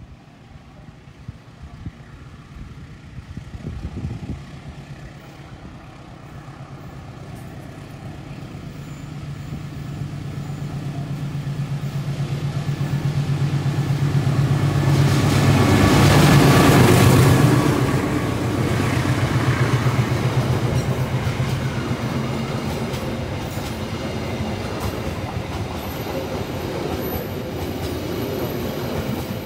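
Train approaching and passing close by: a low engine hum grows steadily louder, peaks a little past halfway, then gives way to the rhythmic clickety-clack of wheels over rail joints as the cars roll past.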